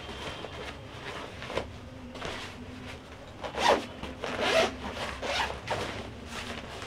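A fabric backpack being handled and its zip worked: a string of short rasping swishes of cloth and zipper, the two loudest about three and a half and four and a half seconds in.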